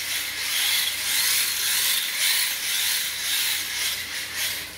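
Brushed electric motor and gear drive of an HSP 1:10 4WD RC drift car whirring as it drives across a tile floor, rising and falling in surges with the throttle.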